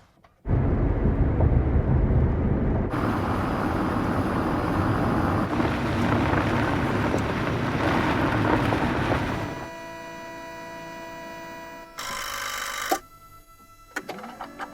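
Hybrid electric car sounds. After a brief gap there are several seconds of steady driving noise, heaviest in the low range. Then comes a fainter steady electric whine made of several held tones, a short loud burst about twelve seconds in, and small rising and falling electronic tones near the end.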